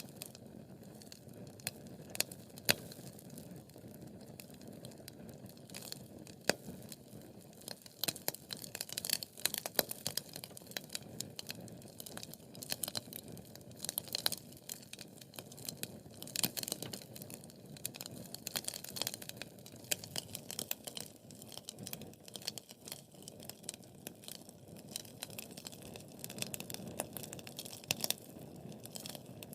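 Wood fire burning in a fireplace: a soft steady hiss and rumble of the flames with frequent sharp crackles and pops, the crackling busier after the first several seconds.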